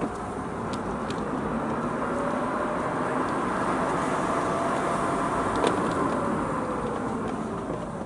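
Mazda RX-8's twin-rotor rotary engine heard from inside the cabin over tyre and road noise, climbing in pitch and loudness through the first half, then easing off with the pitch gliding down in the second half. A few faint sharp ticks sound over it.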